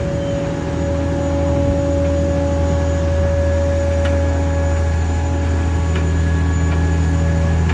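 Heavy-haul transporter rolling under a hydrotreating reactor vessel: a loud, steady low drone from the rig and its many tyres, with a steady whine over it. A few faint metallic clicks from the steelwork come through, about four seconds in, near six seconds and at the end.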